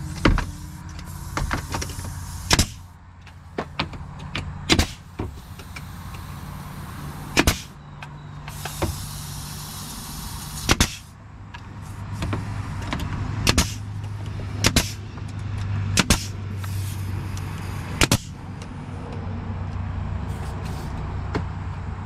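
Nail gun driving nails into the backer board: single sharp shots a second or more apart, some in quick pairs, about ten in all, over a steady low hum.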